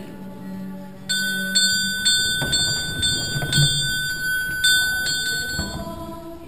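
Altar bells rung by hand: a set of small bells struck again and again, about twice a second, for some four and a half seconds, starting about a second in. Low singing fades under them at the start and picks up again near the end.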